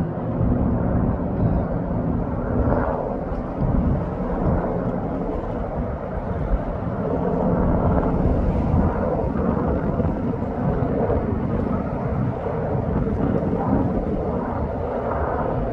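Firefighting helicopter flying with a water bucket slung beneath, its rotor and engine making a steady low drone.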